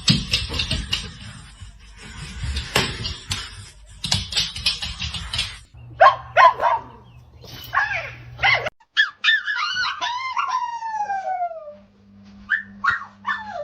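A dog whining and howling in a series of pitched calls, with one long call falling in pitch about ten seconds in, after several seconds of scuffling noise.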